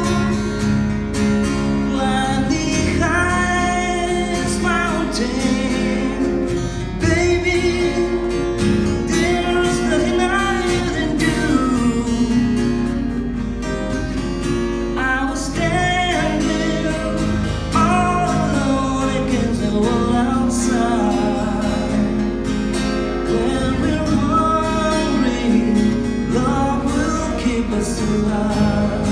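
A man singing a slow pop ballad with two acoustic guitars strumming and picking chords behind him, played live through PA speakers.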